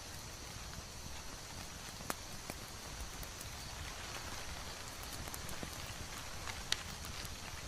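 A layered ambience soundscape: a steady soft hiss full of small crackles and ticks, with two sharper pops, about two and about seven seconds in.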